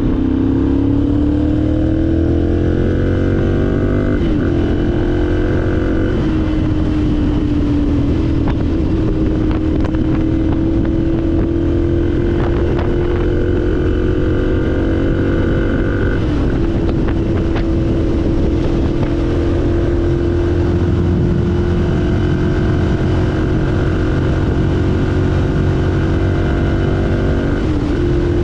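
Ducati Monster's L-twin engine under way at road speed. Its revs climb over the first four seconds, with upshifts about four and six seconds in. It then holds a steady cruising note, with brief dips in revs around eight, sixteen and twenty-eight seconds in, over a constant low rumble.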